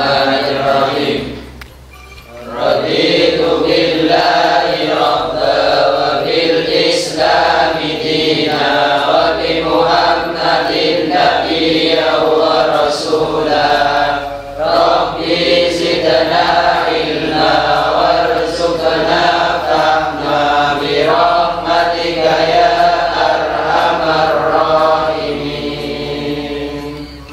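A group of male voices chanting a prayer together in unison, in long sung phrases, with a short pause about two seconds in.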